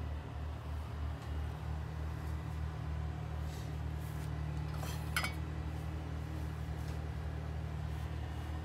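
Breville touchscreen espresso machine running with a steady low hum. About five seconds in, a single glass clink rings briefly.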